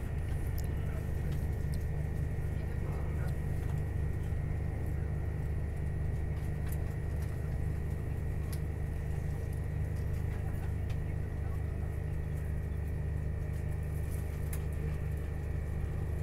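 Steady low rumble of a Tilt Train heard from inside the passenger carriage while it runs at speed, with a constant high whine and a few faint clicks.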